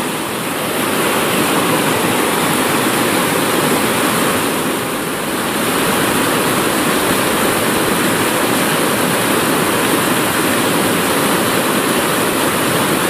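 River rapids rushing over boulders: a loud, steady, even rush of white water, dipping slightly about five seconds in.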